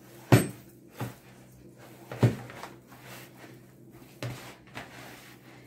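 Sticky yeast dough being kneaded by hand in a plastic bowl: a handful of short, dull thumps at uneven intervals as the dough is pushed and pressed against the bowl, the loudest near the start and about two seconds in.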